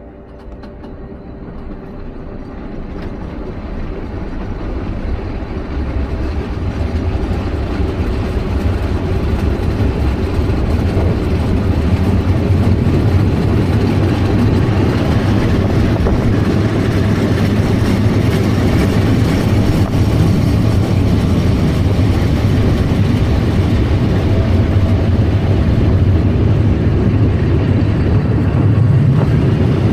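Running noise of an Atterseebahn metre-gauge electric train heard on board, wheels and traction motors growing louder over the first dozen seconds as it picks up speed, then running steadily.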